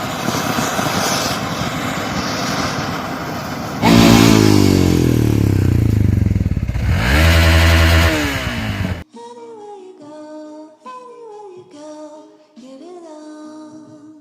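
A loud rushing noise, then an engine-like drone that falls in pitch and rises again. It cuts off abruptly about nine seconds in, giving way to quieter music with plucked notes.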